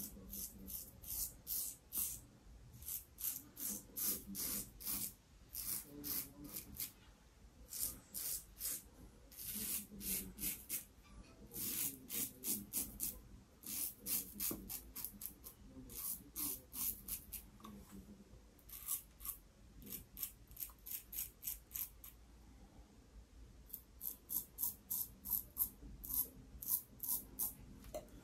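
Double-edge safety razor with an Astra Stainless blade scraping through lathered stubble in short strokes, about four a second, in quick runs with brief pauses between them. The head is a home-made hybrid of a Yaqi SRC037 cap on a Fatip closed-comb base, and the scraping is noisy enough that the shaver finds it a little worrying, though the shave itself is going well.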